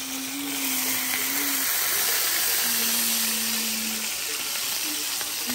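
Ribeye steaks frying in butter in a cast-iron skillet: a steady sizzle, a little louder for a few seconds in the middle.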